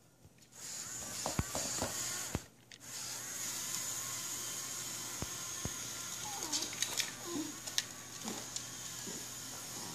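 Small electric motors of a Lego Technic remote-control truck whining steadily as it drives, stopping briefly about two and a half seconds in and then running on. Scattered light clicks and taps sound over it.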